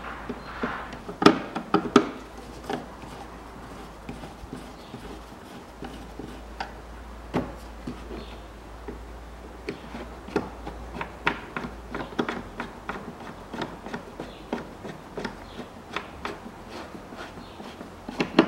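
Screwdriver driving the screws of a plastic air-filter housing lid in a car's engine bay: irregular small clicks and taps, with a few louder knocks about one and two seconds in.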